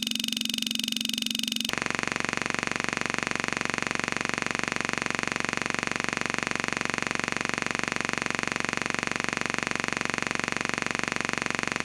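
A steady, buzzing electronic tone with many overtones, switching abruptly to a different, fuller buzzing tone about two seconds in.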